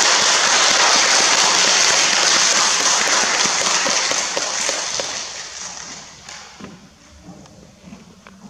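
Audience applause, a dense steady clapping that dies away about five to seven seconds in.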